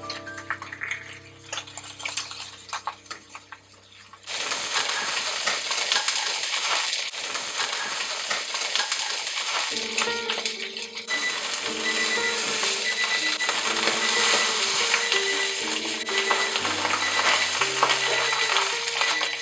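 Whole small fish frying in hot oil in a pan: a steady sizzle that starts suddenly about four seconds in and keeps going, over background music.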